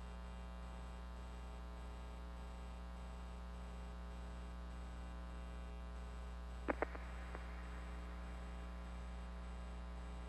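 Steady electrical mains hum on the audio feed, with two short sharp clicks close together about two-thirds of the way through.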